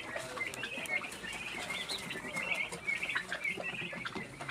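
A flock of chickens chirping and peeping, many short high calls overlapping, with scattered flapping and rustling.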